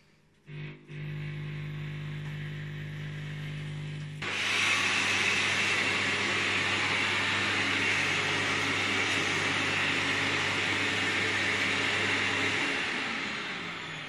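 Thomas washing vacuum cleaner running with a steady motor hum on its upholstery nozzle. About four seconds in, the sound changes abruptly to a louder, even hissing rush of suction that holds and eases a little near the end.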